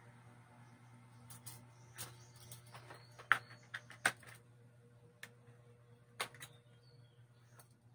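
Scattered light clicks and taps as a small plastic filter part is handled and fitted by hand, the sharpest a little over three seconds in, over a faint steady low hum.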